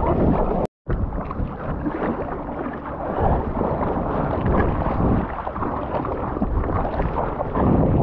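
Water splashing and sloshing around a soft-top surfboard as the surfer paddles with his arms, with wind buffeting the microphone. The sound cuts out completely for a split second just under a second in.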